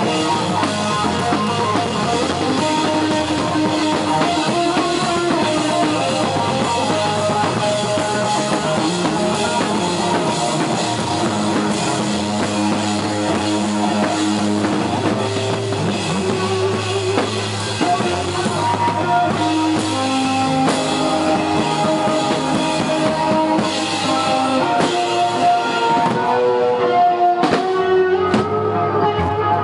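A punk rock band playing live: a drum kit with crashing cymbals driving along under electric guitar. Near the end the cymbals drop away, leaving mostly guitar with a few hard hits.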